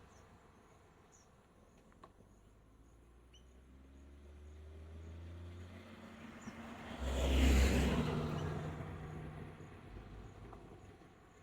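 A motor vehicle passes by on the road, its engine sound building to loudest a little after halfway and then fading away, with faint, regular insect chirping underneath.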